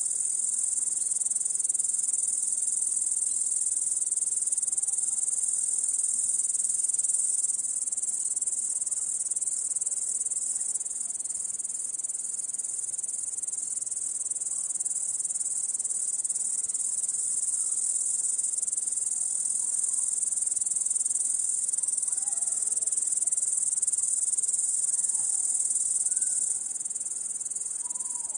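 Chorus of crickets chirping: a dense, unbroken high-pitched trill that drops slightly in level near the end.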